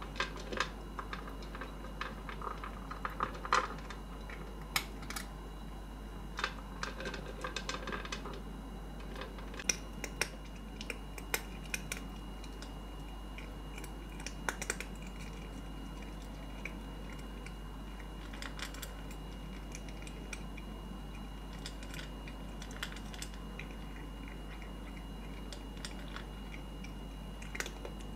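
A cat eating from a stainless steel bowl: irregular little clicks of chewing and of mouth and teeth against the bowl, busiest in the first half and sparser later.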